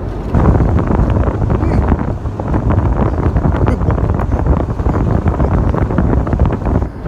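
A 1996 Ford Bronco driving through deep snow: a loud, steady rumble of wind and road noise on the microphone, with many small crackles throughout.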